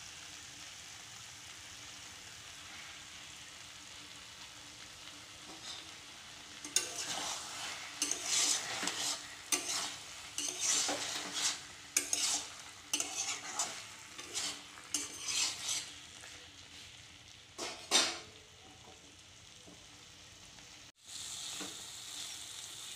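Thick taro stolon and potato curry sizzling in a kadai, then a spatula stirring and scraping through it in a run of strokes, one or two a second, with one more loud scrape near the end.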